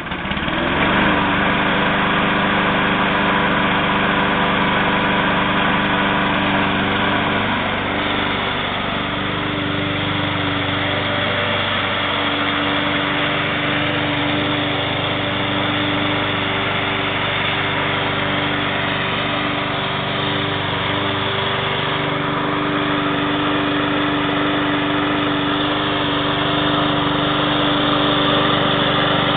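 Lawn mower engine running steadily. Its note shifts slightly about eight seconds in and again a little after twenty seconds.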